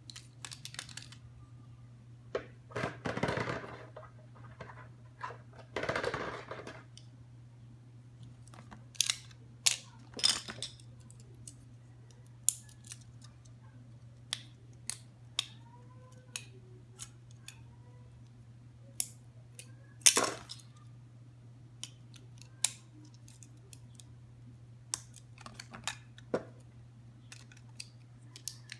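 Unboxing handling noises: two stretches of rustling packaging a few seconds in, then scattered sharp clicks and taps of small plastic parts being handled, over a steady low hum.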